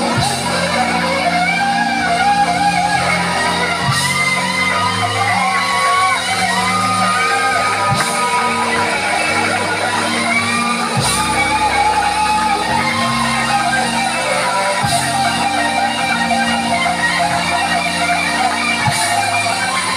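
Live blues band playing: electric guitar, bass and drums, with a lead line of bending, held notes and a sharp accent about every four seconds.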